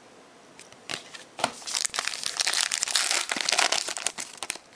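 Trading card pack wrapper crinkling and tearing as it is ripped open by hand, a dense crackle that starts after about a second of quiet and runs until just before the end.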